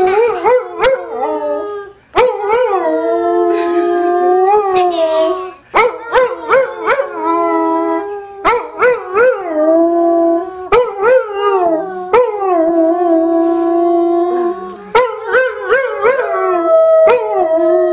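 An English setter howling in long, wavering notes while a woman howls along with it, the two voices rising and falling together. The howls come in runs of a second or two, broken by several sudden sharp clicks.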